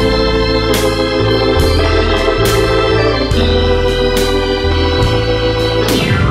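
Instrumental background music: sustained organ chords over a shifting bass line, with a steady beat.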